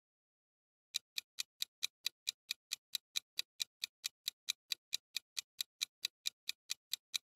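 Countdown-timer sound effect: quick, even clock-like ticks, about four to five a second, starting about a second in.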